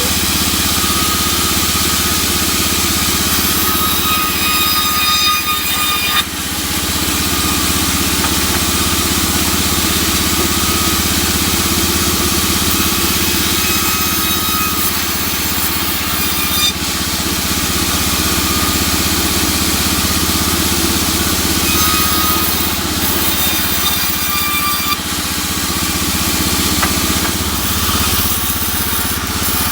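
Sawmill machinery running steadily, with a higher whine that rises in and fades out several times.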